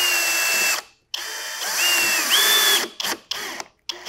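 Drill driving a Torx wood screw into a board in several trigger pulls: a run that stops just under a second in, a longer run whose motor whine steps up in pitch near its end, then two short blips.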